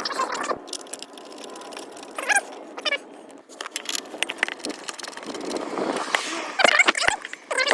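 Short runs of clicks from a socket ratchet, mixed with metallic rattles of bolts and tools, as side-step mounting bolts are fastened to a pickup's frame.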